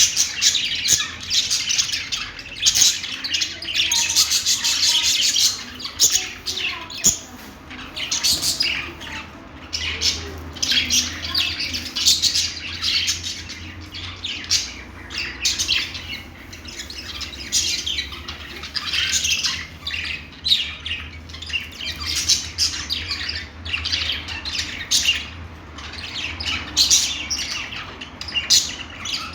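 Budgerigars chattering and chirping nonstop, a dense run of short, sharp squawks and warbles.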